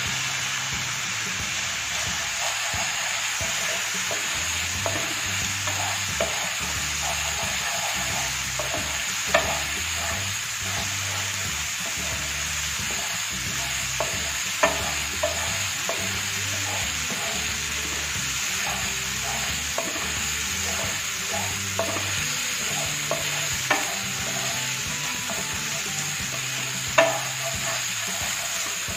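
Ginger-garlic paste sizzling in hot mustard oil in a nonstick frying pan, steadily stirred and scraped around with a wooden spatula. A few sharper knocks of the spatula on the pan come through, the loudest near the end. The masala is being fried until it releases its oil.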